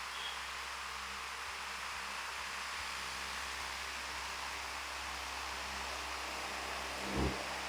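Fan running steadily: an even, airy hiss over a low hum. A brief low thump sounds about seven seconds in.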